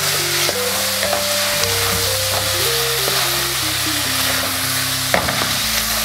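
Onions, sweet corn and peppers sizzling in hot oil on high heat while a wooden spoon stirs them around an aluminium pot, with one sharper click about five seconds in. A soft background melody plays underneath.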